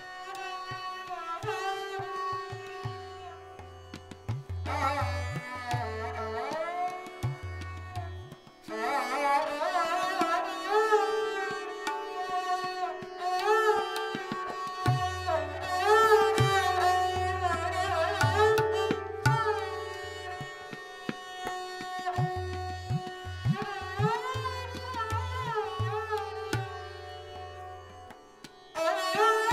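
Hindustani classical music played live: a string instrument plays gliding melodic phrases over a steady drone, with tabla accompaniment whose deep bass strokes come and go. The playing thins briefly about eight seconds in, then picks up again.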